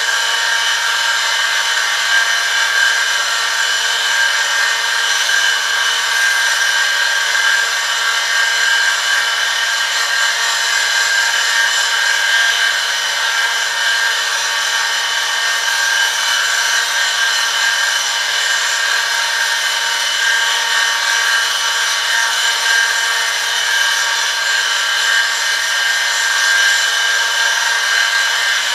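Electric-motor friction test rig grinding metal on metal under a 1 kg lever load, its contact lubricated with Eurol Sportbike 10W-40 synthetic ester oil: a steady, high-pitched screeching whine of several fixed tones over a faint motor hum.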